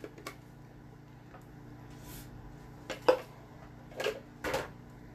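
Kitchen handling sounds of a plastic chopper container and utensils being moved and set down: a few light clicks, a sharp knock about three seconds in, then two short scraping rustles. A low steady hum runs underneath.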